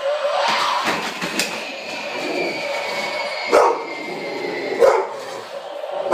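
A dog barking a few times, the two loudest barks about a second apart near the middle, over a steady high tone from an animated Halloween figure as it sits up.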